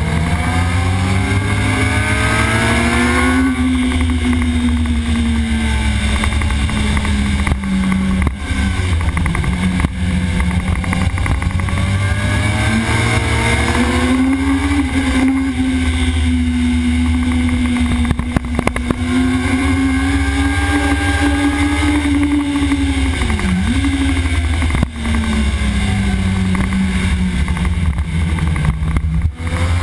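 Sport motorcycle engine at racing speed, heard from a camera mounted on the bike: the pitch climbs and drops several times as it is revved out and shifted through the gears, with a brief sharp dip and recovery a little past two-thirds through.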